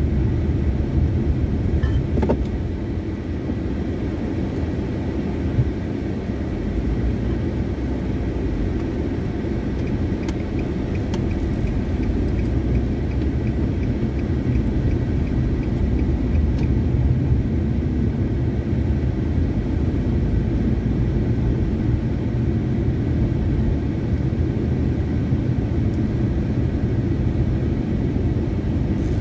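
Inside a moving car: steady low rumble of the engine and tyres on the road. A faint, evenly spaced ticking runs for several seconds midway.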